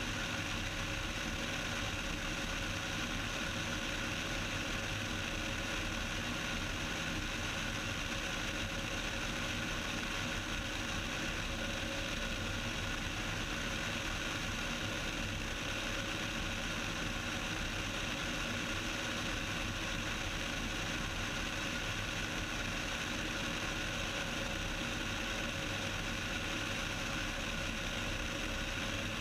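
Cessna 172's four-cylinder piston engine and propeller running steadily in flight, a constant drone heard inside the cockpit.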